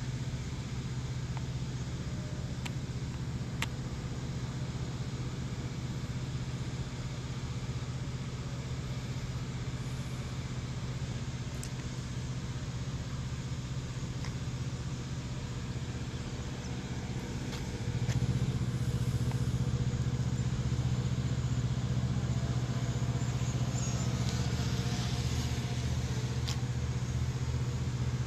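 A motor vehicle engine running steadily with a low hum, which steps up and gets louder about 18 seconds in.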